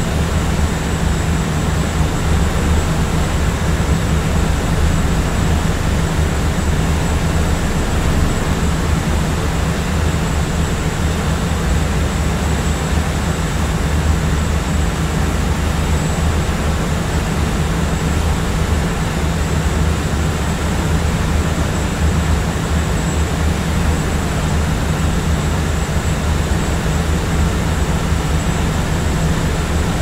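Steady low hum of a jetliner cabin in cruise flight: an even, unbroken rushing drone, with a faint thin high tone held steady above it.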